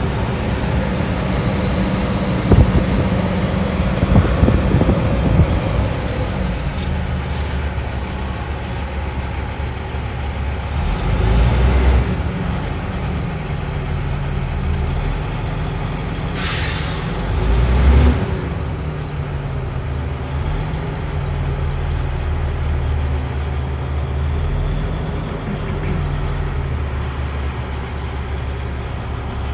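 Heavy military truck's diesel engine running, heard from inside the cab, swelling briefly twice. A short burst of air-brake hiss comes about two thirds of the way through.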